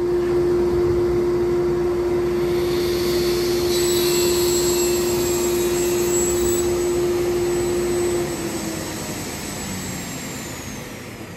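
Felder sliding table saw running with a steady hum, its blade cutting through a board on a crosscut from about four to six and a half seconds in. About eight seconds in the hum stops, and a high whine falls away as the blade spins down.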